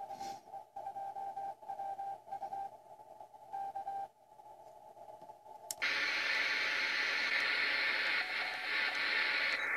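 Kenwood TS-450S HF transceiver receiving on its speaker. For about the first six seconds it plays a single CW (Morse) tone keyed on and off in broken bursts, with little noise behind it. Then, after a click as the receive setting is switched, it gives a loud steady band hiss, which turns duller near the end when a narrower filter cuts its upper part off.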